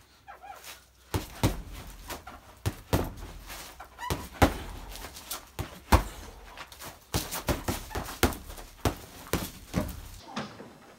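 Boxing gloves punching a hanging heavy bag: a run of sharp thuds in quick, irregular combinations of two to four blows, the loudest about six seconds in. The punching stops about a second before the end.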